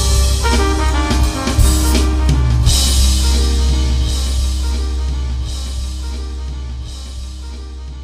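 Background music with drums and bass, fading out towards the end.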